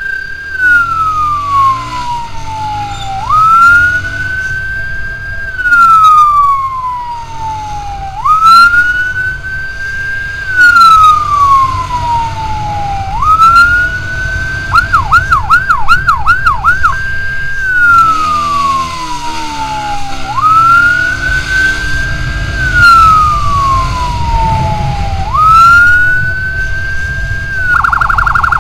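Electronic emergency siren on the escort motorcycle, wailing in cycles that rise quickly and fall slowly about every two and a half seconds. Around the middle it breaks into a burst of fast yelps, and near the end it switches to a rapid warble. The motorcycle's engine and wind rumble run underneath.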